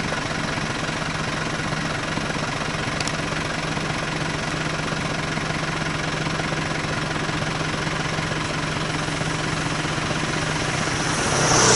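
Vehicle engine idling steadily, a low hum under an even wash of noise. Near the end a louder rushing sound swells up.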